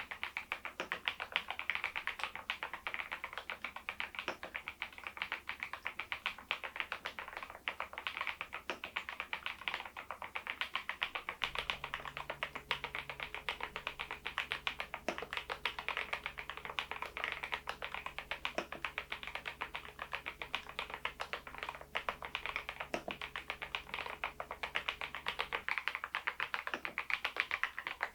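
Typing on a Machenike K500 PRO mechanical keyboard fitted with Adelie V2 switches: a continuous, even run of key clacks at a steady typing pace.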